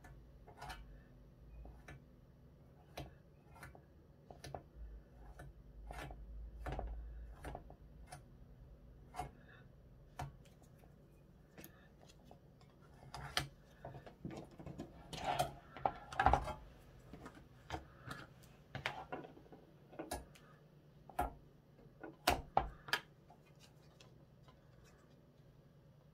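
Scattered light taps, clicks and short scrapes of a small spreader working car body filler into chips and holes in a painted clock dial, with handling of the dial and tools. The louder scrapes and clicks come a little past halfway and again later on.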